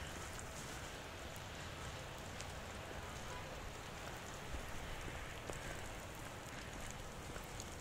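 Light rain falling in a steady hiss, with scattered drops ticking on wet surfaces during a thaw.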